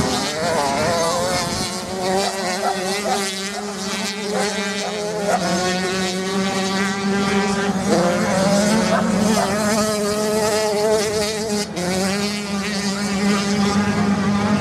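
Dirt bike engines racing on a sand track, the pitch climbing as each bike opens the throttle and dropping at each gear change or corner, over and over, with more than one engine heard at once.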